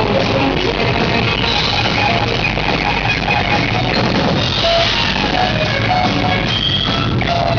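Death metal band playing live: electric guitar and drum kit, loud and dense without a break.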